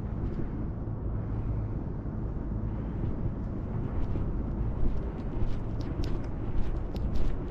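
Outdoor city ambience: a steady low rumble, with scattered sharp clicks or taps in the second half.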